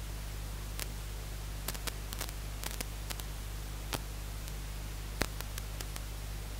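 Steady static hiss over a low hum, with a dozen or so faint, irregular clicks: recording noise.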